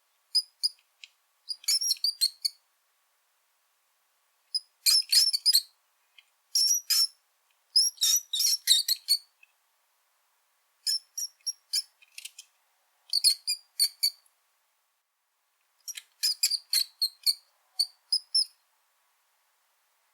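Brown rat squeaking: clusters of short, high-pitched squeaks in quick succession, with silent gaps of a second or two between the clusters.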